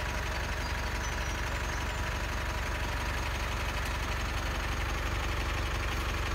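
A vehicle engine idling steadily: an even low rumble with no change in speed.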